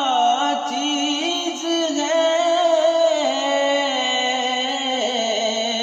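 Male voice singing a naat. He draws out a long melismatic line with no clear words, the pitch sliding between held notes.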